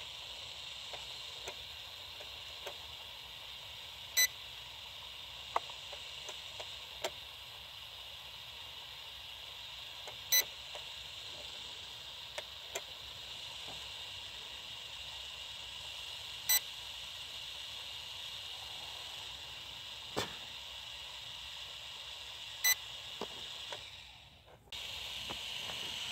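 A short electronic beep from the drone's radio-control gear, repeating four times about every six seconds over a steady high hiss, with a few faint clicks.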